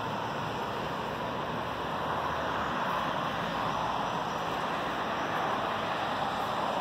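Steady city traffic noise, an even hiss and rumble without distinct events.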